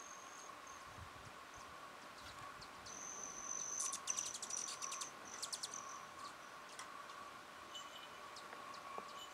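Hummingbirds buzzing and chittering: a thin, high whine comes and goes, with a quick run of sharp ticking chips between about four and five and a half seconds in, the loudest part, over a steady high hum.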